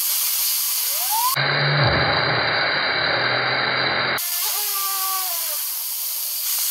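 High-pressure waterjet stream hissing as it strikes and spins two inline-skate wheels, with a whine from the spinning wheels that rises in pitch in the first second, then holds and sags. For a few seconds in the middle the hiss turns duller, with a low hum under it.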